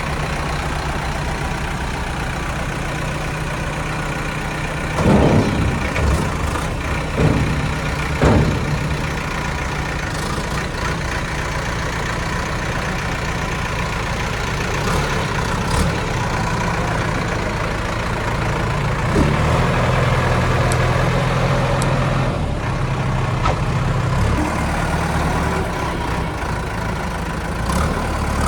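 Heavy diesel engine idling steadily, with a few sharp knocks about five to eight seconds in and the engine running a little harder for a few seconds around twenty seconds in.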